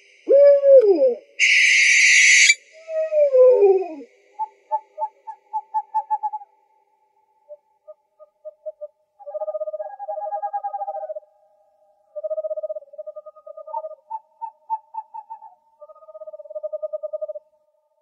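Owl calls: a short rising-and-falling wail, a harsh hissing screech about a second and a half in, and a falling whinny. After that come runs of short notes on one pitch, quickening into rapid trills that repeat with short pauses between.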